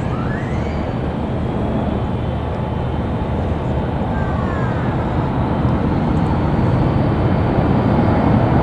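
Jet airliner on final approach with gear down, its engines a steady low noise that grows gradually louder as it comes closer.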